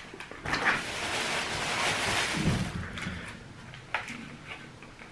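Blueberries being poured into a bowl: a dense rattling patter for about two and a half seconds that fades out, followed by a single sharp click near the end.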